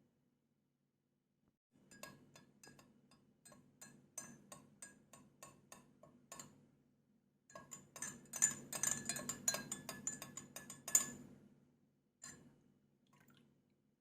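A spoon clinking against a glass: separate taps about two a second, then after a short pause a faster, denser run of clinks for about four seconds, as in stirring, with one last tap near the end.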